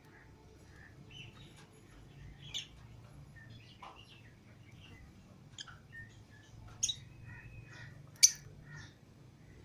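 Lovebirds chirping: many short, high chirps scattered through, with a few sharp, louder calls, the loudest a little past eight seconds in.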